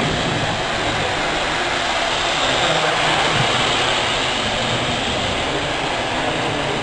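Small indoor RC model Cessna 310 in flight, its electric motor and propellers whirring with a steady, hissy sound that grows a little louder midway.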